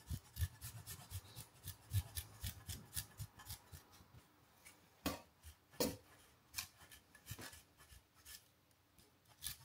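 A block of parmesan grated on a fine rasp zester: a quick, uneven run of light scraping strokes, with two sharper scrapes about five and six seconds in.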